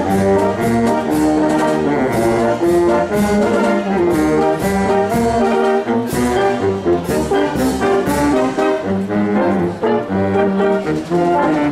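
Wind band of brass and clarinets playing a tune in full chords, with percussion strikes on a steady beat.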